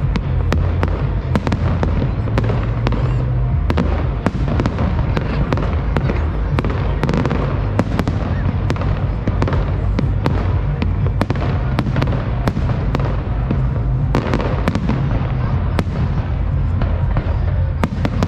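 Fireworks display: a dense, continuous run of sharp bangs and crackles from bursting shells, with music and a low bass line playing underneath.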